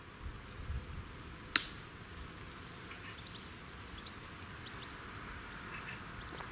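Quiet outdoor ambience: a low wind rumble on the microphone and a few faint bird chirps, with one sharp click about a second and a half in.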